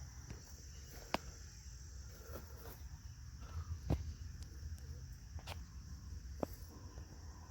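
Steady high-pitched chorus of insects in the field, over a low rumble of wind on the microphone, with a few sharp clicks and knocks, the loudest about a second in and just before four seconds.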